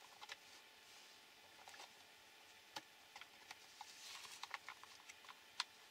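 Faint, scattered clicks and ticks of small plastic and metal parts being handled and fitted onto a Tamiya XV-01 PRO RC car chassis, with a quick run of small clicks about four seconds in and the sharpest click near the end.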